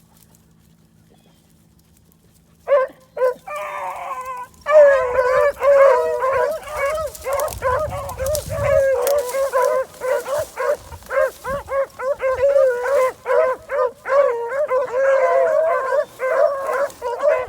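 A pack of rabbit-hunting hounds baying and howling in overlapping voices, starting about three seconds in and continuing without a break: the cry of dogs running a rabbit's trail.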